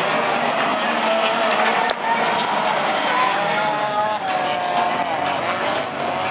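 Engines of a pack of small hatchback race cars racing on a dirt track, several engine notes revving high and rising and falling together as the cars accelerate and lift through a corner. A sharp click sounds about two seconds in.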